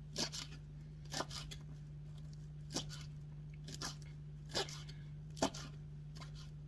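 Chef's knife chopping dandelion greens on a wooden cutting board: about six sharp chops, roughly one a second and unevenly spaced.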